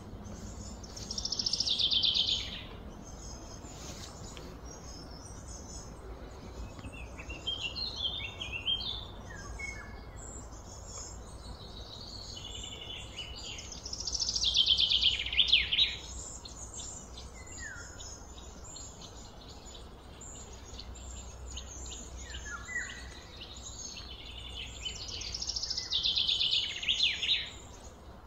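Outdoor birds chirping and calling over a steady low background rumble. A louder high call of about two seconds comes three times, roughly twelve seconds apart.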